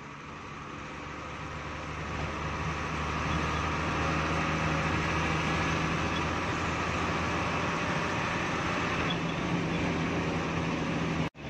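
Hino AK3HR bus's diesel engine and road noise heard from inside the cab as the bus drives along, growing louder over the first few seconds and then running steadily. The sound cuts out briefly near the end.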